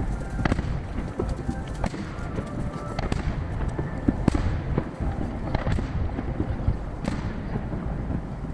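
Aerial fireworks shells bursting far off, a rapid series of sharp bangs over a continuous low rumble, each bang trailed by its echo.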